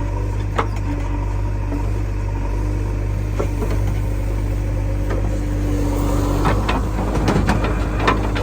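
Diesel engine running steadily under load. Several sharp metallic knocks and clanks come near the end.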